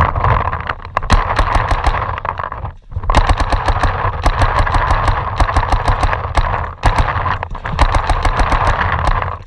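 Paintball markers firing in rapid strings of sharp pops, several a second, with short breaks about 3 and 7 seconds in, over a steady rushing noise.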